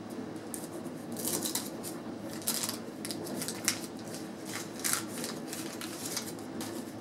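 Wax-paper wrapper of a 1988 Fleer baseball card pack crinkling and tearing as it is opened by hand, in a series of short crackly rustles.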